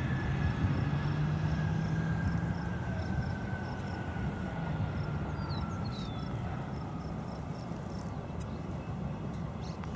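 Embraer ERJ regional jet's turbofan engines running as the jet rolls along the runway. A whine falls slowly in pitch over a low hum, and the sound gradually fades.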